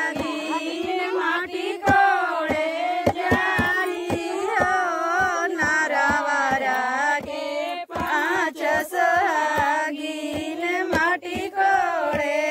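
Women singing a Bhojpuri matkor folk song with long, wavering sung lines, over a steady beat of sharp strikes about two to three a second.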